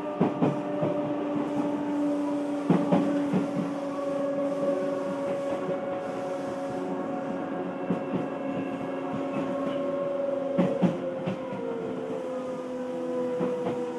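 On-board running sound of an Odakyu 1000-series electric train: a steady traction motor and gear whine that slowly falls in pitch as the train eases off speed. Now and then the wheels clack over rail joints.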